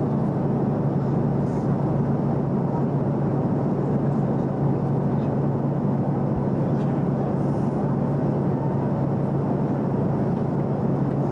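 Airliner cabin noise: a constant rushing of engine and airflow noise with a steady low hum underneath.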